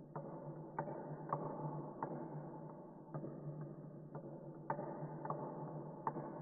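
Wooden pecking-chickens paddle toy in motion: the chickens' wooden heads tap down on the wooden board in an irregular patter of sharp clicks, about ten in six seconds, over a steady low hum.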